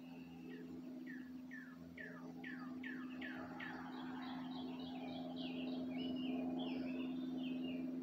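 A songbird singing: a run of about eight falling notes that speed up over the first few seconds, then a faster, choppier phrase of higher notes. A steady low hum runs underneath.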